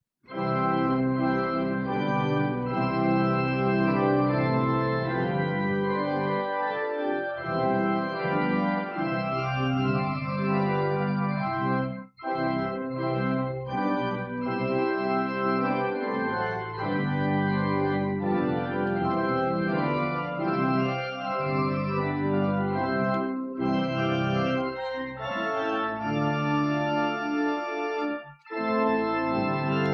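Church organ playing music in held chords, with two short breaks between phrases, about twelve seconds in and near the end.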